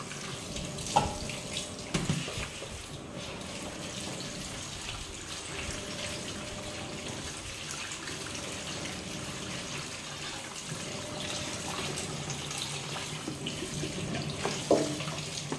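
Tap water running into a sink as blanched fish stomachs are rinsed and scrubbed by hand, with a few short knocks.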